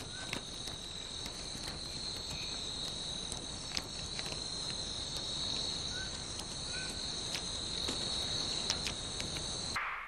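Steady high-pitched chorus of night insects, with a few faint short chirps and clicks over it; the chorus breaks off briefly near the end.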